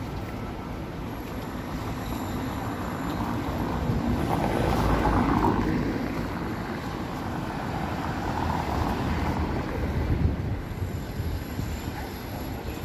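Traffic noise from vehicles passing on a city street: a steady rumble that swells twice, about five and nine seconds in.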